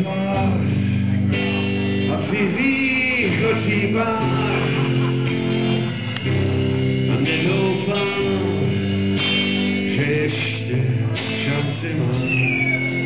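Live rock band playing: electric guitar chords and drums under a singing voice.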